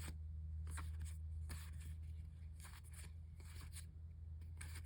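Pokemon trading cards being flipped through by hand, one card sliding off the stack against the next, about half a dozen soft swishes over a low steady hum.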